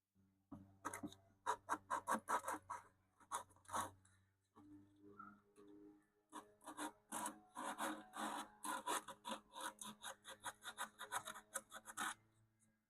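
Sandpaper rubbed back and forth on the wooden edge of a radio cabinet, quick scratchy strokes about three to four a second, in two runs with a pause of about two seconds between them.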